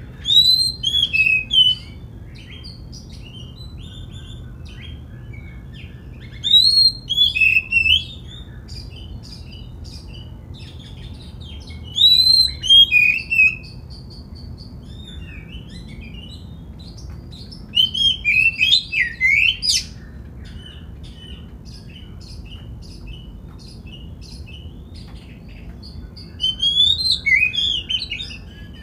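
Oriental magpie-robin singing: five loud phrases of quick rising and falling whistled notes, each lasting about two seconds, some five seconds apart, with soft scattered chirps between them.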